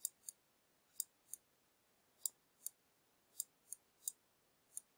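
Faint, light clicks, mostly in pairs about a third of a second apart and roughly once a second: the pointer pressed and lifted for each stroke while a word is hand-written on screen.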